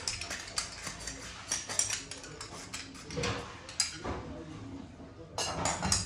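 Brass kitchen utensils clinking and knocking against one another as they are handled: a run of irregular, sharp metallic clinks, some ringing briefly.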